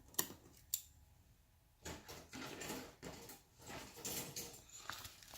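Plastic model kit parts being handled and put back into their cardboard box: two sharp clicks near the start, then a few seconds of rustling and light knocks.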